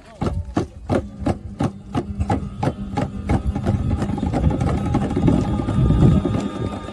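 Live accompaniment for a Papuan dance: sharp beats about three a second, fading after a few seconds into sustained strummed guitar chords over a low rumbling noise that grows louder.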